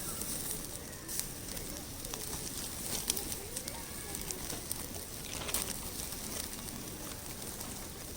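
Firewood burning in a fire-pit stand: a steady crackle with scattered sharp pops, the sharpest about three seconds and five and a half seconds in.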